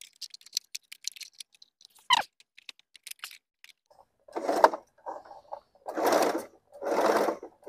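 Toyota Jeans electric sewing machine running in short bursts, about one a second, as its foot pedal is pressed and released by hand. Before that, a few light clicks from the power plug being handled.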